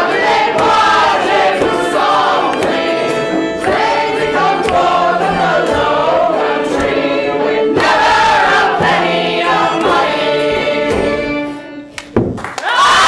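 A group of voices singing together in chorus. The singing drops off for a moment near the end before loud voices come back in.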